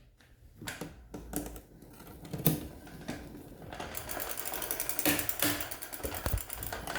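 Fat bike's chain drivetrain turned by hand while the chain is shifted down to a smaller front chainring. A few scattered clicks and knocks come first, then from about four seconds in a fast, steady ticking as the chain and freewheel run.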